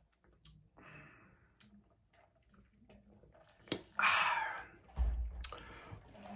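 Close-miked eating sounds: faint mouth clicks and chewing, then a louder crunchy bite or chew about four seconds in, followed by more chewing noise.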